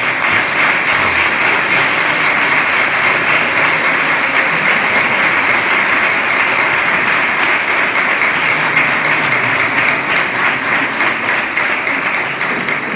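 A congregation applauding: a long, steady round of clapping that dies away near the end.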